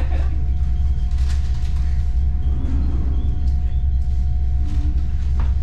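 Suburban electric train running, heard from inside the carriage: a steady low rumble of the car on the rails, with a thin steady hum held above it.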